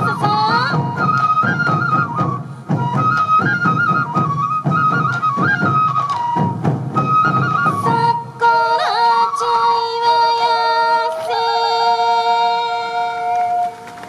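Sansa odori festival music: a traditional transverse bamboo flute (yokobue) plays an ornamented melody over a steady beat of taiko drums. About eight seconds in, the drums stop and the piece closes on long held notes.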